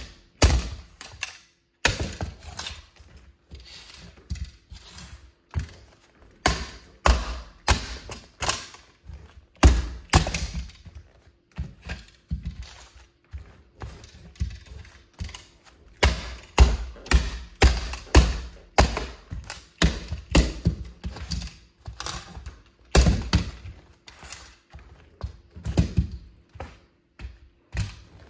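Stiletto heels stamping on and crushing a plastic toy car: an irregular string of sharp plastic cracks and crunches mixed with heavier heel thuds, some coming in quick clusters.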